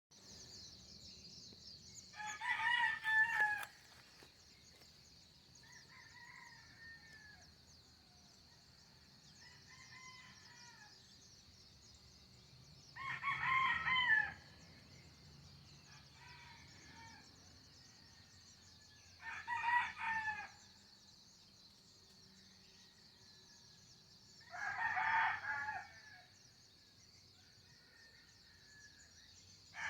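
A rooster crowing four times, each crow lasting about a second, with fainter, more distant crowing in the gaps. A steady high hiss runs underneath.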